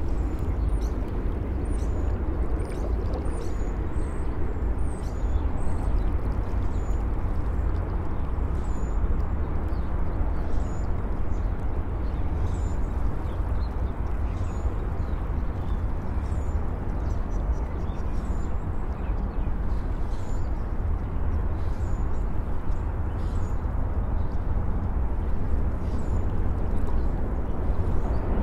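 Steady low rumble of city traffic, with small birds making repeated short, high chirps over it.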